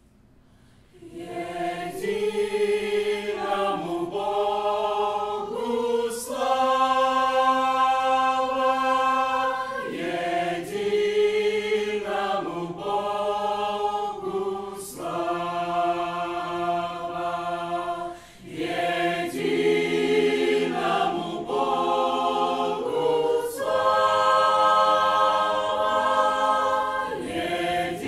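Church choir singing a sustained hymn, starting about a second in, with a short break between phrases near the middle.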